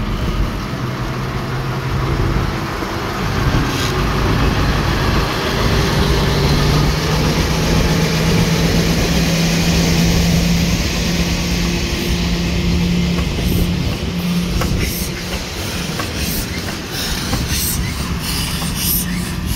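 Sentinel 0-6-0 shunter hauling a brake van and a small tank locomotive slowly past, its engine running with a steady tone that rises a little. In the second half the wheels click and squeal over the rail joints.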